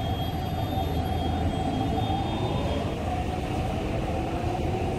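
MTR East Rail Line Hyundai Rotem R-train electric train pulling out of the station, its running gear humming and its traction motors whining with a slowly rising pitch as it gathers speed.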